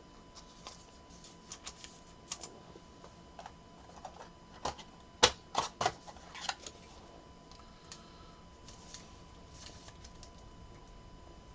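Scattered light clicks and taps from small hard objects being handled, irregular and sparse, with a short run of sharper clicks about five to six and a half seconds in.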